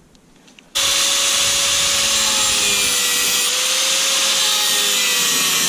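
Angle grinder with a cut-off wheel switching on about a second in and cutting through stripped screws on a sheet-metal hatch frame: a steady high motor whine over a harsh grinding hiss, its pitch dipping slightly under load.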